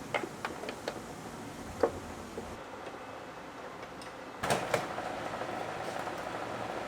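A few light clicks and taps, one sharper click near two seconds in, then a louder clatter of knocks about four and a half seconds in, followed by a faint steady hum.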